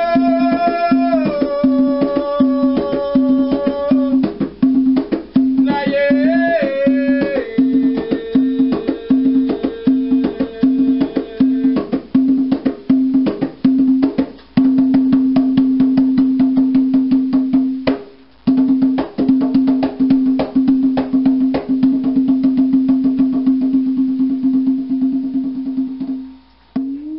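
Rope-laced hand drum struck with bare hands in a fast, steady rhythm. A man's voice sings over it for the first few seconds and again briefly about six seconds in, and a steady held tone runs under the drumming. The playing stops near the end.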